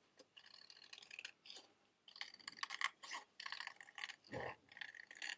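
Scissors with serrated blades cutting through thin card in short, irregular crunching snips, faint.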